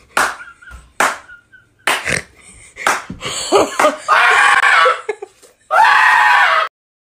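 A few sharp smacks about a second apart, then excited voices and two long, loud screams of excitement over an unwrapped gift. The sound cuts off suddenly near the end.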